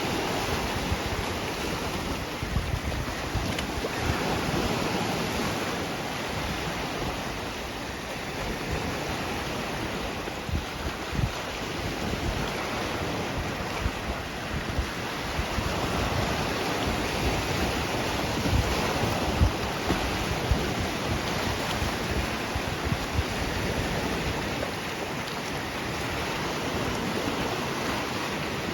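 Sea waves washing onto the shore, a steady rushing surf, with wind buffeting the microphone in low gusts.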